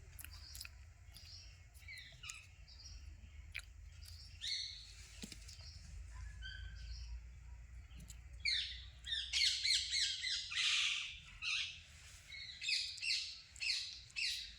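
Birds squawking and chirping in short, high calls, scattered at first and then crowding into a loud, dense run over the second half.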